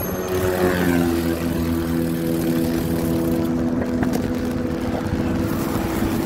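A motor vehicle's engine running steadily in passing traffic, its pitch stepping up about a second in and then holding, over a low rumble.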